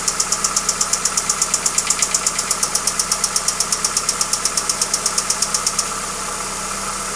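Hyundai Accent engine running with a sharp, regular knock about six or seven times a second; the knock stops about six seconds in while the engine keeps running steadily.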